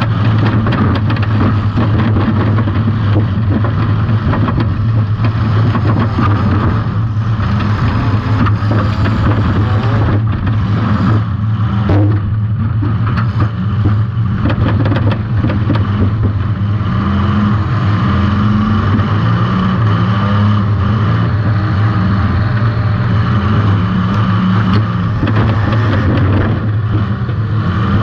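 Compact demolition derby car's engine running loud and steady under throttle, heard from a camera mounted on the car, with scattered knocks and clatter.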